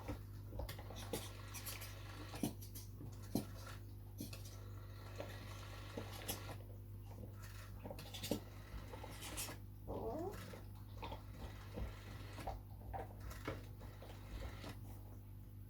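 Scattered light clicks and knocks from a GPO 746 rotary-dial telephone being dialled by hand. About ten seconds in there is a short wavering cry.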